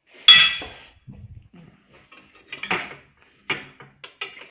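Steel hand tools clanking on metal: one loud ringing clang about a third of a second in, then a few lighter clinks of a spanner against metal parts.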